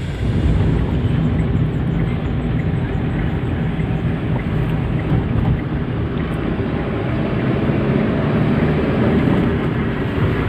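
Steady low rumble of a car on the move: road and engine noise, with no music.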